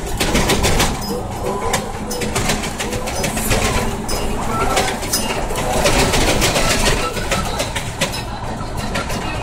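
Inside the cab of a truck driving a very rough dirt road: engine and road rumble with constant rattling and jolting, and short squeaks throughout.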